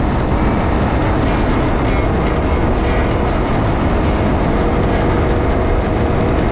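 Can-Am Ryker 900 three-wheeler under way at road speed: a steady drone of its three-cylinder engine mixed with wind and road rumble, level throughout.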